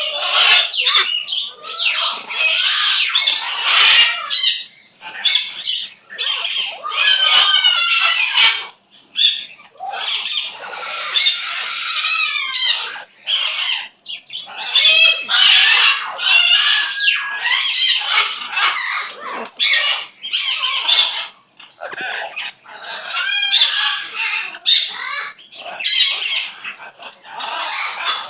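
Pet bird calling almost without pause, a rapid run of warbling chatter and squawks with only brief gaps.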